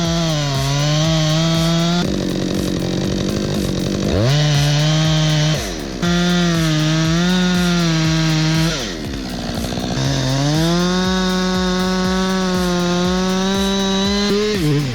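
Chainsaw running at high revs and cutting wood, its engine pitch dipping under load and climbing again several times.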